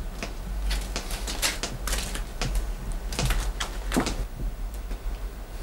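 Irregular sharp clicks and knocks, several a second at times, over a steady low electrical hum.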